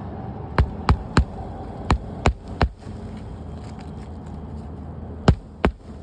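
Hammer driving roofing nails into a 3-tab asphalt shingle: about eight sharp strikes in quick groups of three, three and two.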